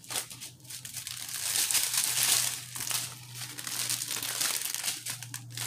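Clear plastic bags of diamond-painting drills crinkling and rustling as they are handled, loudest about two seconds in and again near the end.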